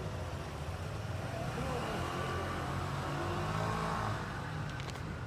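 A motor vehicle's engine running with a steady low rumble, swelling between about two and four seconds in.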